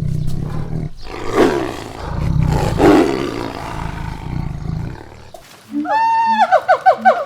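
Farm animals calling: a loud, rough, low call lasts about five seconds, then a higher pitched call near the end breaks into a quick run of pulses.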